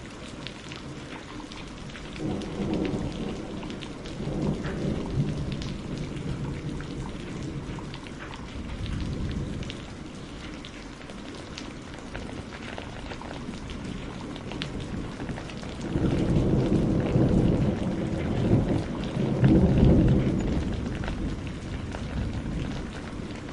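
Steady rain hissing, with two long rolls of thunder: one a couple of seconds in, and a louder, longer one in the second half.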